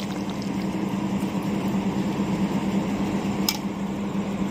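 A small motor running with a steady hum, and a single sharp click about three and a half seconds in.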